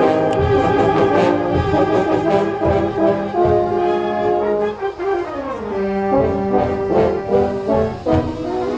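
Brass band playing, moving through held chords with short percussive strokes among them.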